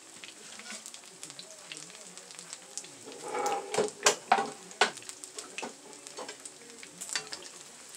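Egg rolls frying in hot oil, crackling and popping steadily. A few louder clicks and knocks come about halfway through.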